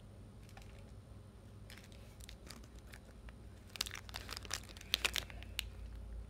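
Faint crinkling of a snack-bar wrapper being handled: a few scattered crackles about two seconds in, then a denser run of crackles from about four to five and a half seconds.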